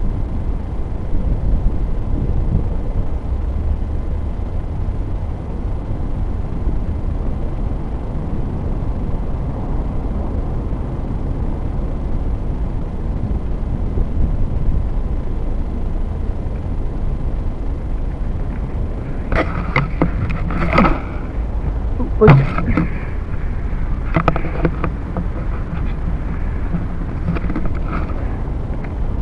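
Wind buffeting the small built-in microphone of a Syma X5HC quadcopter's camera as the drone lies still on the ground, a steady low rumble. In the last third come several short, sharper noises.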